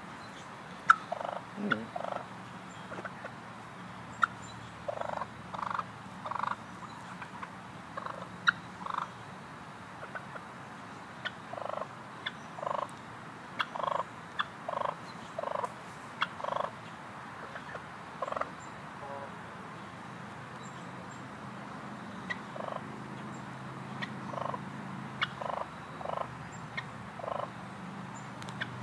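Wild turkeys calling with short, repeated notes, one or two at a time every second or so, which the person close by reads as unhappiness at his presence. A few sharp clicks are also heard.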